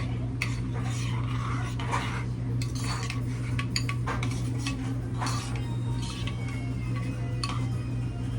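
Metal utensils clinking and scraping against a bowl while mixing a grinder sandwich filling of lettuce, red onion, mayo and Italian dressing, in irregular clicks over a steady low hum.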